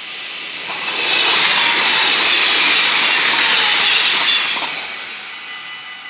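A Stadler GTW-E electric train passing over a level crossing. Its rush of wheel and running noise swells about a second in, holds for about three seconds and fades away. The crossing's warning bells ring steadily underneath.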